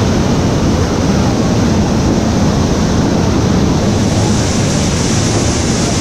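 Man-made waterfall pouring down rockwork: a steady, loud rush of falling water.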